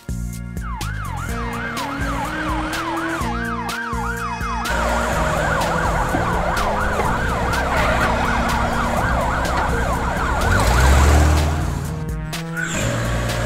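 Cartoon siren sound effects from a police car and an ambulance, wailing up and down about twice a second, then turning faster and overlapping, over background music. About eleven seconds in, a deep rumble is the loudest sound.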